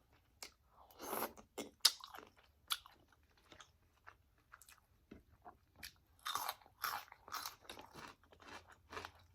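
Close-miked eating: crunchy bites and wet chewing. Denser crunching comes about a second in and again around six to seven seconds.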